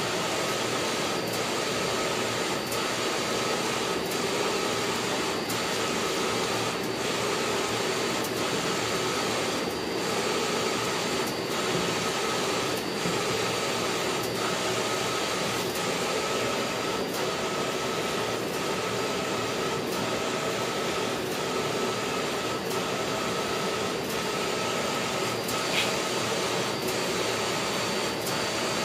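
Wide-format inkjet printer printing: a steady mechanical whirring as the print head carriage sweeps back and forth, with a light regular tick about every one and a half seconds. There is one short high chirp near the end.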